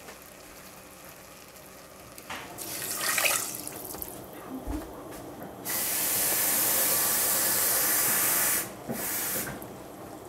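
Water being poured into a saucepan of dry rice: a short splashing pour a couple of seconds in, then a loud, steady rush of running water for about three seconds that cuts off abruptly, and a brief splash after it.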